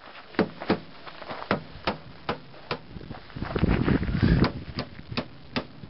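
Hand hammer striking a car's front wheel-arch sheet metal in a steady series of sharp knocks, about two and a half a second, with a louder rough scuffing noise for about a second near the middle.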